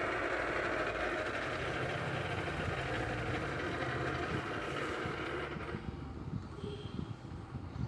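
Regency turbo electric fan running with a steady whirring and a low hum, the strange noise it has been making. About six seconds in the whirr drops away suddenly, leaving irregular low knocks.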